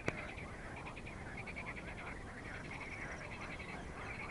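A chorus of frogs calling in fast pulsed trains, steady throughout. A single sharp click comes right at the start.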